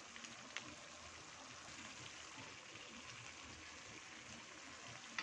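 Spaghetti sauce bubbling and sizzling in a wok: a faint, steady hiss with a few small crackles.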